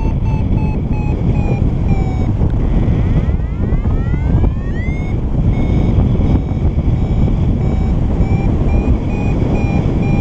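Paraglider variometer beeping rapidly, signalling a climb in a thermal, its pitch sagging and rising with the strength of the lift, over steady wind rush on the microphone. A few seconds in, the beeps give way briefly to a rising gliding tone, then pick up again.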